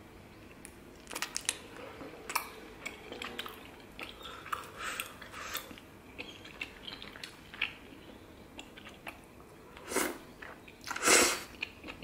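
Close-miked chewing of crisp soybean sprouts: a run of short crunching bites, with two louder, longer noisy sounds near the end.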